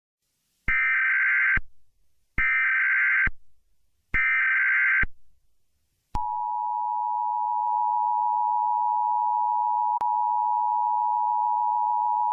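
Emergency Alert System SAME header: three roughly one-second bursts of digital data screech, then about a second later the EAS two-tone attention signal starts, a steady harsh dual tone that runs on.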